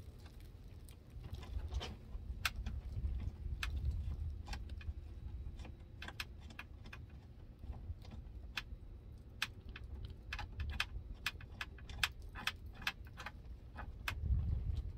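Irregular light metallic clicks and rattles from hand work inside a car door shell, as the two 10 mm bolts holding the window glass to the window regulator are spun out, over a low background rumble.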